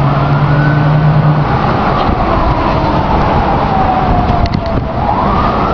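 Emergency-vehicle siren wailing over loud street traffic noise, its pitch sliding slowly down and then rising again near the end.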